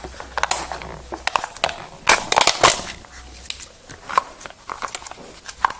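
Packaging of a new ink cartridge being torn and pulled open by hand: irregular crackling and crinkling, loudest in a dense flurry about two seconds in.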